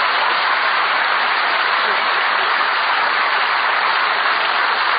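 Studio audience applauding steadily, a dense even clatter of many hands.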